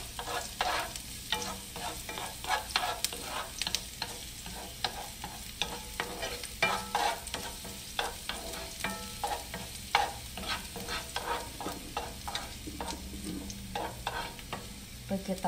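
Chopped garlic sizzling in olive oil in a nonstick frying pan while a wooden spoon stirs it, with many short clicks and scrapes of the spoon against the pan. The garlic is being sautéed toward golden brown.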